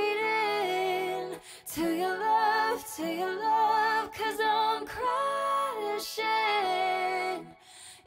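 A song: a woman singing a slow melody over soft backing music, which drops out briefly just before the end.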